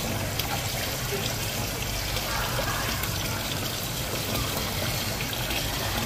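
Steady running water.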